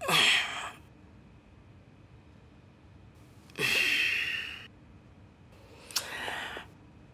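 A man gasping and breathing hard as he jolts awake from a nightmare. There are three loud breaths; the first two open with a falling voiced gasp, and the last is shorter.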